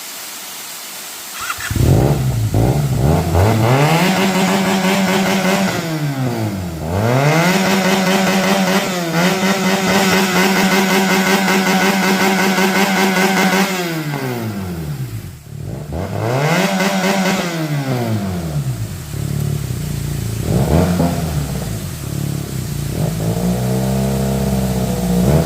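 Benelli 302S motorcycle's 300 cc parallel-twin engine, revved hard several times. It climbs to a high steady pitch and holds there, dropping and rising again about every six to eight seconds, with quicker short blips near the end.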